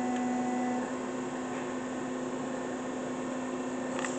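Boyar-Schultz 618 hydraulic surface grinder running: a steady hum from its spindle and hydraulic drive. It drops slightly in level a little under a second in, with a faint click near the end.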